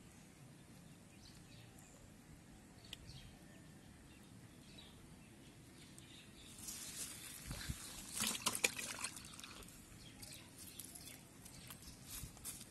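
Quiet outdoor background, then a few seconds of crackling, clicking rustles about halfway through, from handling close to the microphone.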